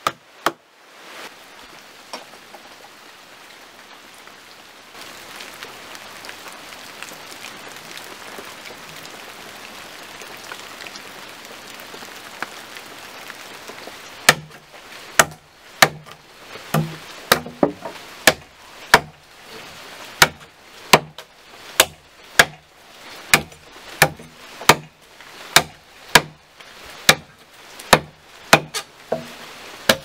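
A steady hiss of background noise, then from about halfway through a regular run of sharp knocks, about one to two a second: a blade held against a wooden plank's end is struck over and over, chopping into the wood.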